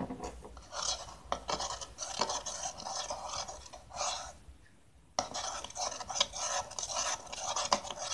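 Metal spoon stirring a glue-and-borax slime mixture in a bowl, scraping against the bowl in quick, uneven strokes. It comes in two spells with a short pause about halfway.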